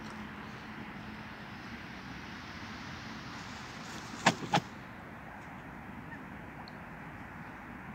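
Canada goose giving two short, loud honks in quick succession about four seconds in, over a steady background hiss.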